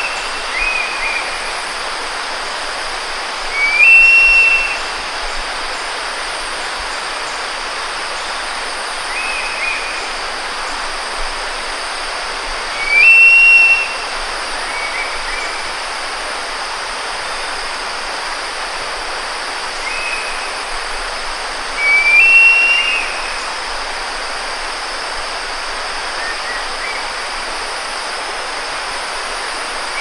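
Javan eagle (Nisaetus bartelsi) giving short, shrill high-pitched calls every few seconds, the loudest about every nine seconds with fainter ones between, over a steady hiss.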